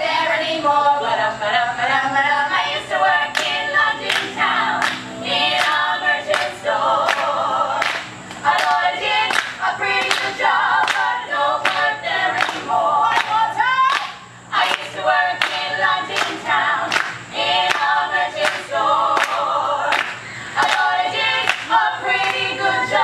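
Four women singing a cappella in close harmony, with sharp beats keeping a steady time under the song.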